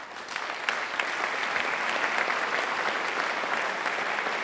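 Audience applauding: many hands clapping, building up over the first second and then holding steady.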